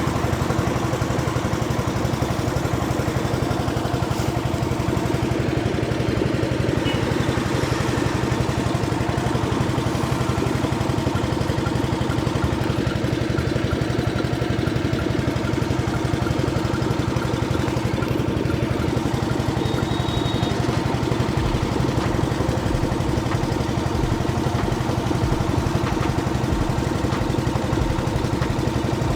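Generator engine running steadily at a constant speed, with an even hum.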